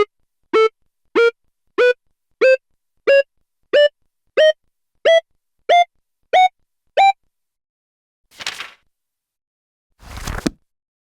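Motorola phone keypad tones: twelve short synth beeps, one per key, about two-thirds of a second apart, each a little higher in pitch than the last. Two brief hissy electronic bursts follow near the end.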